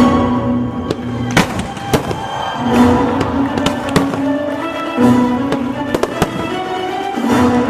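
Background music with held tones, broken by several sharp bangs or pops at irregular intervals.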